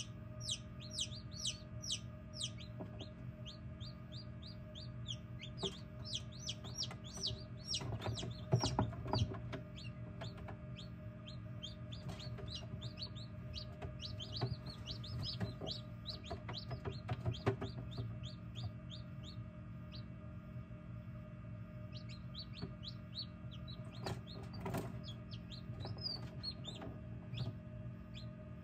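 Newly hatched chicks peeping in an egg incubator: quick high peeps that fall in pitch, several a second, thinning out for a while in the middle. A steady low hum runs beneath, with a couple of brief knocks.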